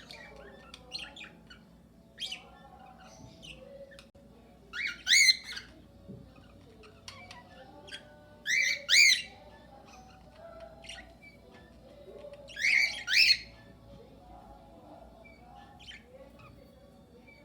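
A flock of cockatiels and budgerigars calling in an aviary: three loud, harsh double squawks about four seconds apart, over continuous soft chatter and scattered small chirps.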